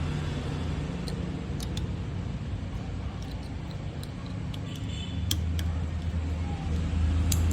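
A steady low hum with a few light clicks and handling knocks as a foot pedal's plug is connected at the back of a bottle capping machine.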